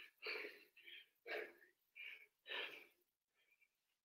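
A man breathing hard from exertion during a dumbbell exercise: quick, short puffs and gasps, about two a second, growing fainter toward the end.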